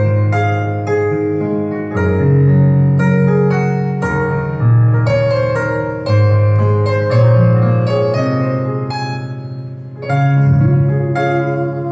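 Slow piano introduction: held low notes under broken chords and a simple melody, the chord changing about every two seconds.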